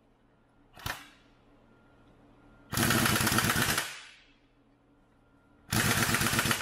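Pneumatic impact wrench hammering in two bursts of about a second each, running down the yoke nut on a semi truck power divider's input shaft. A single short knock comes about a second in.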